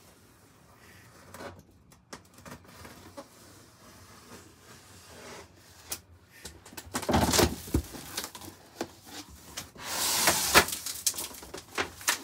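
Cardboard box being opened: light taps and clicks, then two loud bursts of cardboard scraping and rustling about seven and ten seconds in as the flaps are worked open.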